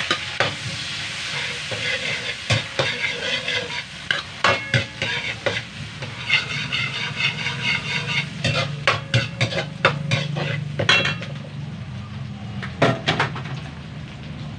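Chopped onions, tomatoes and spring onions sizzling steadily in hot oil in a wok, while a metal ladle stirs them, scraping and clinking against the pan many times.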